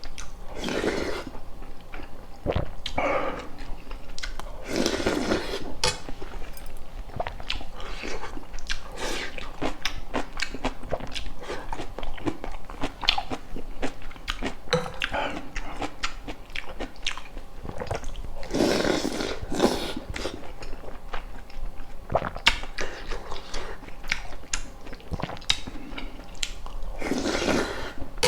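A person chewing and biting food at the mouth, with many small wet clicks and crunches, and a few louder mouthfuls along the way.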